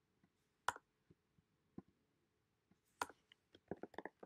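Computer keyboard keystrokes: a single sharp key click under a second in, then a run of quick key clicks near the end as text is typed.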